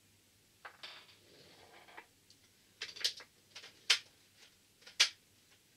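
Small plastic craft bottles clicking and knocking together as they are sorted through, with soft rustling early on and a few sharp taps, the loudest about four and five seconds in.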